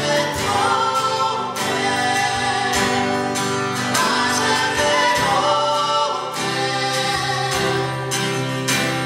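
A woman and a man singing a worship song together, with a strummed acoustic guitar accompanying them.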